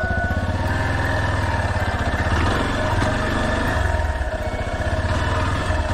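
Yamaha Serow 250's air-cooled single-cylinder engine running steadily, a continuous rapid pulsing thrum.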